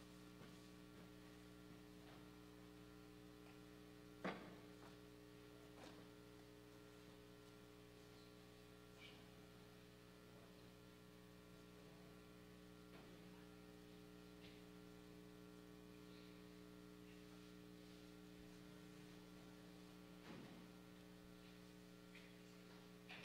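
Near silence with a steady electrical mains hum and a few faint, brief knocks, the clearest about four seconds in.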